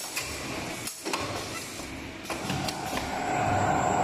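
Automatic wire ring forming and welding machine cycling: a steady whine from the wire-feed rollers, a brief lull about a second in, then the whine building again through the second half, with scattered mechanical clicks.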